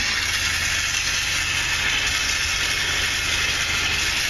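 Water running steadily from a hose into a bathing tub as it fills, over the steady hum of the electric water pump that feeds the hose.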